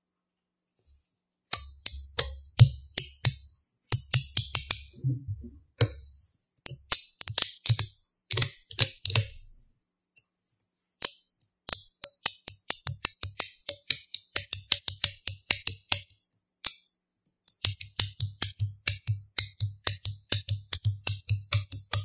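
Small neodymium magnetic balls clicking as cubes of them snap onto each other on a tabletop: irregular runs of sharp clicks and knocks with short pauses between.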